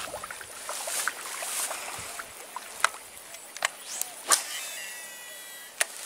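A cast with a Shimano Curado DC baitcasting reel: a sharp swish about four seconds in, then a thin whine for about a second, falling in pitch as the spool slows, typical of the reel's electronic brake. Scattered clicks and rustling around it.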